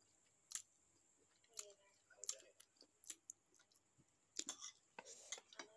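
Faint chewing: soft, wet mouth clicks and smacks at uneven moments as someone eats food from her fingers, a little busier near the end.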